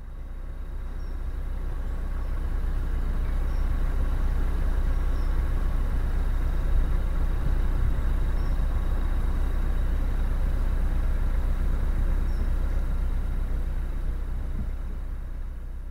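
Narrowboat engine running steadily as the boat cruises, a deep rumble that fades in at the start and fades out near the end.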